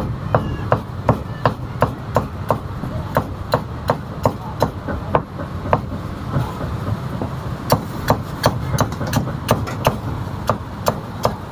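Heavy meat cleaver chopping roast meat on a thick wooden chopping block: sharp, even chops about three a second, with a short pause about halfway through, over a steady low rumble.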